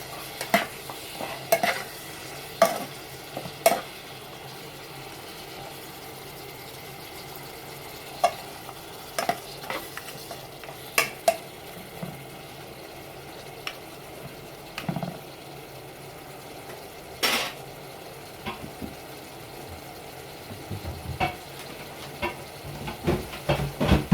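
Garlic and onion sautéing in hot oil in a pan: a steady sizzle, with a spatula clacking and scraping against the pan over and over as they are stirred.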